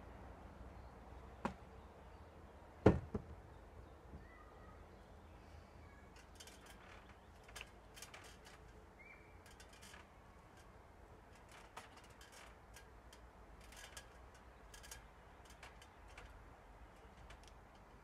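Knocks on the wooden log frame: a light one about a second and a half in, then a louder sharp knock near the third second with a quick second hit. After that only faint scattered light ticks and a few faint bird chirps.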